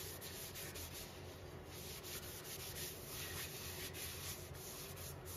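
Faint, steady rubbing of a cloth shop rag being wiped over a small turned wooden bowl to apply oil finish.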